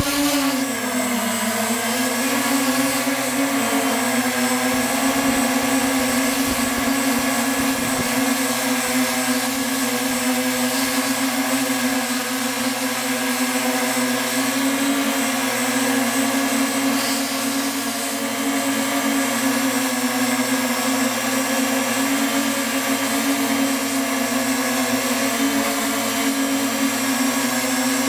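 Octocopter's eight 2820 brushless motors and propellers humming steadily in flight, heard close up from the craft's own camera. The pitch dips just after the start, then holds with slight wavers as the motors adjust.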